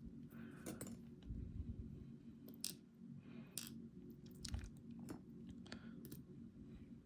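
Faint, scattered small clicks and taps of lock pins, springs and tools as a dimple lock's chambers are emptied onto a desk, over a steady low hum.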